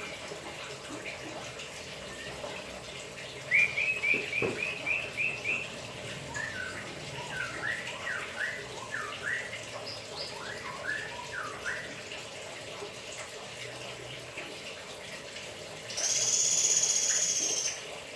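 White-rumped shama (murai batu) singing while being bathed: a quick run of about eight repeated rising notes, then a string of varied sliding notes, over a steady splashing of water. Near the end a loud, steady high whistle lasts nearly two seconds.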